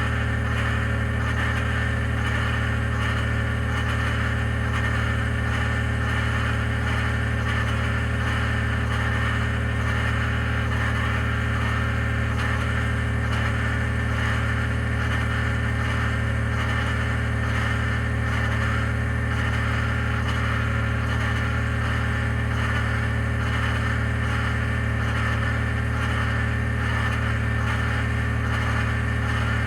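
2021 Ford F-150 PowerBoost's 3.5-litre twin-turbo V6 running steadily after a cold start, with a grinding, cavitating noise that is the fault under investigation. The sound holds steady, with no change in speed.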